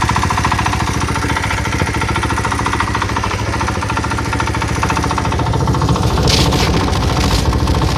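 Small governed engine idling off load with a fast, steady knock. The knock comes in when the throttle is released and goes away with a little throttle, and the owner suspects the crankshaft bearings after the crankcase cover shifted. About six seconds in, the running grows louder and heavier.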